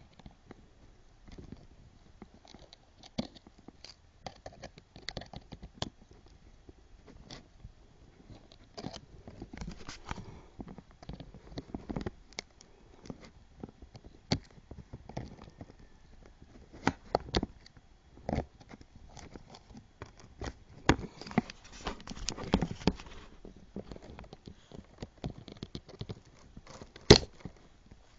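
Irregular small clicks and taps, with a brief scraping stretch about three quarters of the way through, from hands and a small tool working on a Nokia 5800 phone's casing and parts during disassembly.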